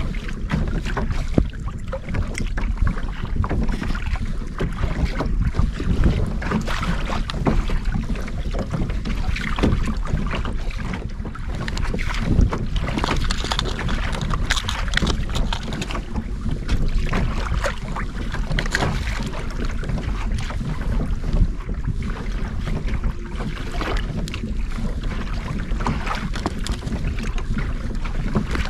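Wind buffeting the microphone over a steady low rumble, with water lapping and slapping against a kayak's hull on open water.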